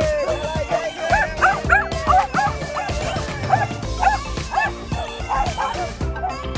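Small dogs yipping and barking in play, many short yaps in quick succession, over background music.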